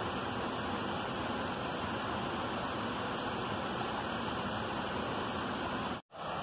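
Small woodland stream running over rocks, a steady even rushing. The sound drops out for a split second near the end.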